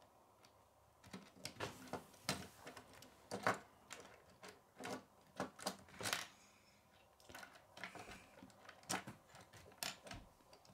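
Plastic K'nex rods and connectors clicking and snapping as they are fitted and pushed along by hand, a series of irregular sharp clicks.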